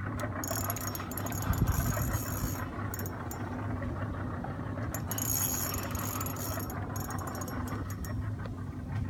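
A boat's outboard motor runs steadily under the clicking, rattling whir of a spinning reel, which comes in spells as line is worked against a hooked shark.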